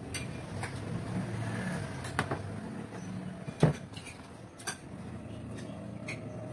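Tableware clinking at a meal: a spoon knocking against metal bowls, a rice pot and plates, a handful of short, sharp clinks with the loudest a little past halfway.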